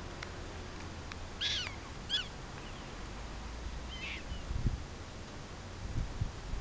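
Three short, high chirping calls, about a second and a half, two seconds and four seconds in, typical of a black-tailed prairie dog's alarm bark at a passing hawk. Beneath them there is a steady low rumble, and a few low thumps come near the end.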